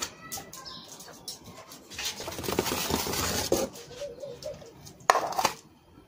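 Dog food being handled in a metal bowl with a spoon: scattered clinks, then a dense stretch of rattling and clattering in the middle, and a short loud clatter near the end.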